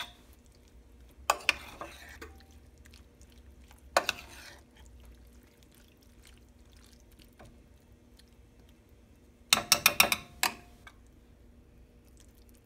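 Metal spoon stirring a thick, wet mixture of corn, diced tomatoes and yogurt in a ceramic baking dish, with scattered knocks and scrapes of the spoon on the dish and a quick run of about six clicks about three-quarters of the way through.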